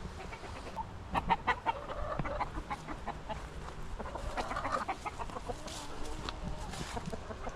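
Chickens clucking: a flock's short, quick clucks coming in clusters.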